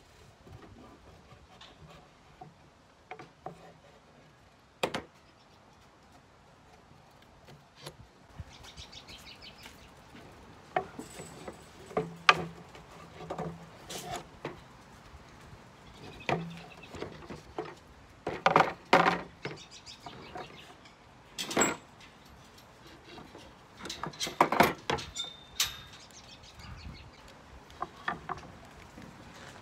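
Hand assembly of a Crosley wooden record crate: scattered knocks and clatters of the wooden panels and slats against each other and the table, with small clinks of a hand screwdriver and screws. The knocks come sparsely at first, then in louder bunches past the middle.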